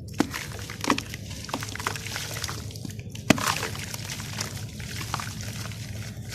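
Crunchy sand clumps crumbling and crunching in water, with a series of sharp crackles over a steady crumbling noise; the loudest crack comes about three seconds in.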